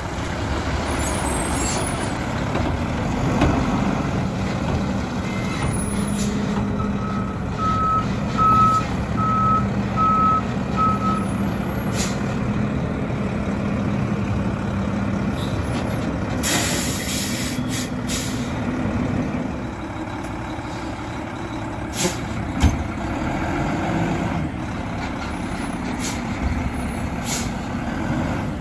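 Mack LR front-load garbage truck running as it pulls in and manoeuvres, its engine steady throughout. A short run of backup beeps sounds about a quarter of the way in, and a sharp air-brake hiss comes a little past halfway.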